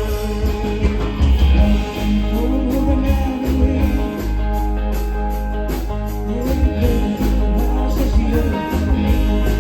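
A band playing live, with guitar over a heavy bass line and a steady beat with tambourine or cymbal.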